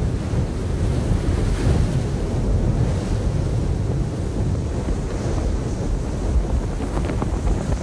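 Strong wind of a desert sandstorm blowing steadily and buffeting the microphone with a deep, rumbling roar.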